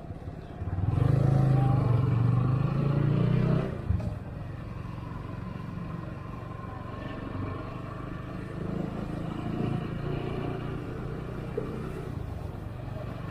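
Yamaha R15 V3 motorcycle's single-cylinder engine under way on the road. It runs louder for about three seconds from just after the start, then eases to a steady, quieter cruise.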